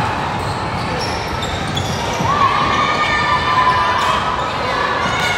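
Busy indoor sports hall: balls bouncing on the court floor and short shoe squeaks over a steady murmur of voices.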